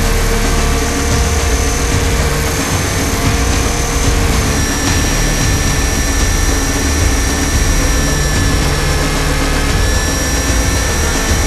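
A 500-size RC UH-60 Black Hawk scale helicopter in flight, heard from its onboard cockpit camera. A steady whine from the drive and rotor sits over a heavy rush of rotor wash, and the whine shifts pitch about four and a half seconds in.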